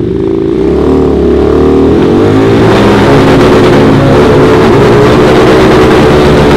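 Two Harley-Davidson V-Rods revving hard side by side during burnouts, the engine note wavering up and down. From about two seconds in, a loud hiss of spinning, smoking rear tyres builds over the engines.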